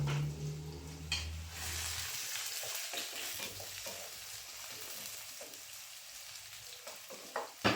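Food sizzling and frying in hot oil in a cooking pot, with a low hum that stops about two seconds in and a sharp knock or two of a utensil against the pot.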